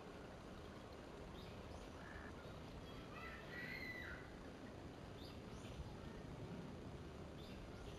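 Faint calls of wild birds in the background: a few short chirps, with a brief, slightly louder call about three to four seconds in, over a low steady hiss.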